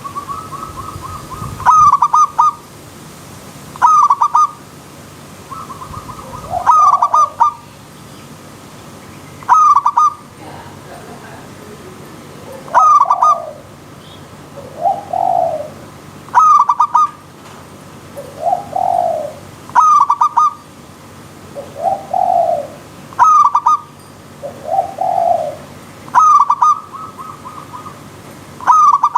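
Zebra doves (perkutut) cooing, with a short stuttering call about every three seconds. From about halfway, a lower, arched coo answers in between. A faint steady rush of flowing water runs underneath.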